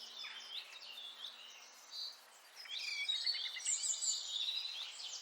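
Several small birds chirping and singing, a birdsong ambience; the calls grow busier and louder about two and a half seconds in.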